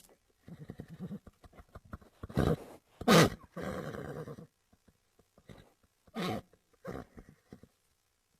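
Horse snorting and blowing through its nostrils: a series of breathy snorts, some with a fluttering rattle, the loudest about three seconds in, then two shorter ones near the end.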